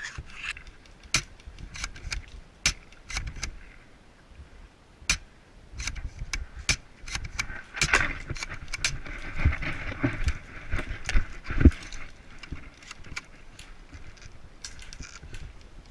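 Irregular clicks, jangles and rattles of a moving airsoft player's gear, with a stretch of rustling and a few low thumps in the middle.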